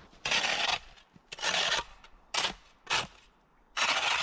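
A small shovel's blade chopping and scraping into packed snow at the foot of an upright log, five rasping strokes: two longer ones in the first two seconds, two short ones, then a longer one near the end.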